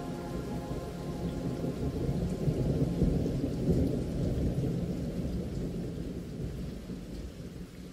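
Rolling thunder over steady rain, swelling to its loudest a few seconds in and then slowly fading away. A held music chord dies out in the first moments.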